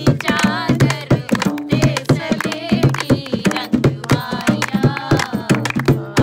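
A woman singing a folk wedding song, with a dholak drum beaten in a steady rhythm and hands clapping along.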